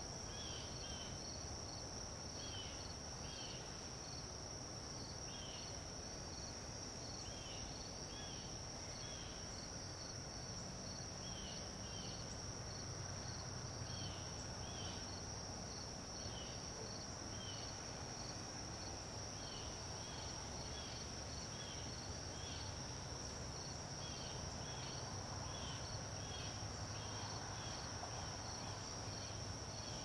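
Dusk chorus of crickets and other insects: a steady high-pitched trill, with shorter chirps repeating irregularly over it, and a low background rumble.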